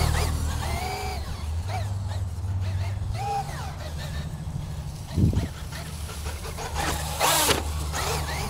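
Traxxas UDR RC truck's brushless electric motor whining, rising and falling in pitch as the truck speeds up and slows, over a steady wind rumble on the microphone. A short thump comes about five seconds in and a brief rush of noise about seven seconds in.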